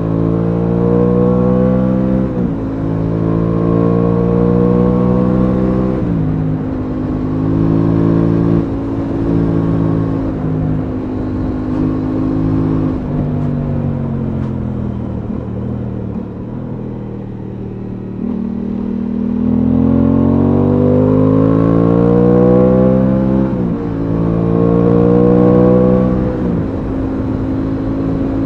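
Aprilia Tuono 660's parallel-twin engine pulling through the gears, its note climbing and dropping sharply at each upshift. About halfway through it eases off and falls in pitch, then picks up and pulls through two more upshifts near the end.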